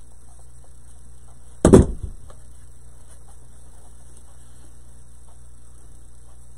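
Steady electrical mains hum, with one loud thump about a second and a half in that dies away quickly, then faint scattered small ticks.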